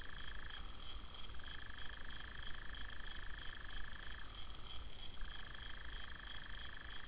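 Night-time animal chorus: long, steady trills at two pitches, each lasting two to three seconds with short gaps and sometimes overlapping, over a continuous pulsing high buzz and a low rumble.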